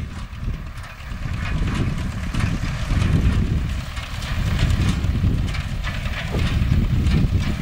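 MTZ-5 tractor's diesel engine running under load while driving a hay baler: a steady low rumble that swells and eases every second or two, with faint clicking from the machinery.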